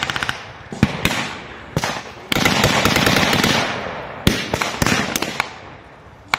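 Blank-fired gunfire in a battle reenactment: the tail of a rapid machine-gun burst at the start, then scattered single rifle and pistol shots. About two seconds in, a sudden loud rushing noise starts and fades away over a couple of seconds.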